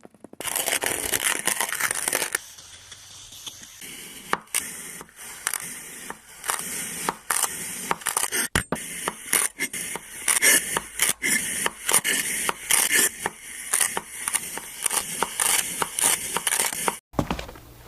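Kinetic sand being cut and crushed: a dense run of quick strokes, louder for the first two seconds, that breaks off suddenly near the end.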